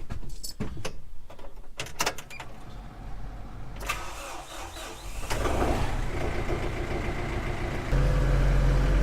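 A few knocks and clicks, then an engine starting about four seconds in and running steadily. It steps up louder near the end.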